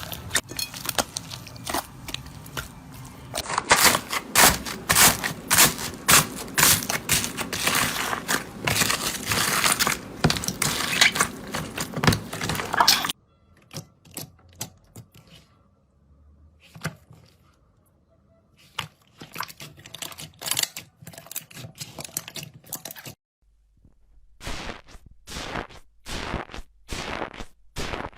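Slime being squeezed and worked by hand, giving dense crackling and clicking. About halfway through it turns much quieter with only scattered clicks, then sharp clicks come at an even pace near the end.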